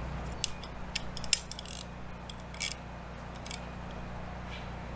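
Irregular small metallic clicks and ticks of hand tools as the float bowl is tightened back onto a portable generator's carburetor after an O-ring replacement.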